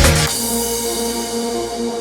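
Electronic background music: a driving beat cuts out about a quarter second in, leaving steady, sustained synthesizer tones.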